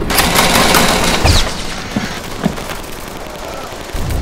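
Battle gunfire sound effects. A dense, loud burst of gunfire with a deep boom fills the first second and a half, followed by a couple of sharp single cracks. Heavy firing starts again near the end.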